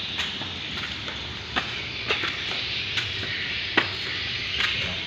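Footsteps in sandals on bare concrete: irregular sharp slaps every half second to a second, over a steady hiss.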